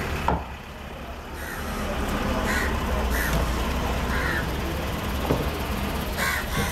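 A machete chopping fish on a thick wooden block, a few dull knocks. Birds call several times in short harsh calls over a steady low rumble.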